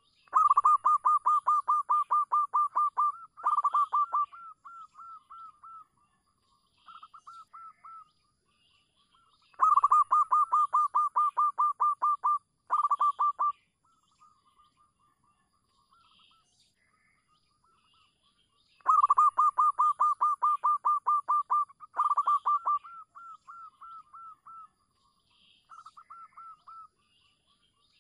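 Zebra dove (perkutut) song in three bouts about nine seconds apart. Each bout is a fast run of short, clipped cooing notes, about seven a second, and trails off into a few much softer notes.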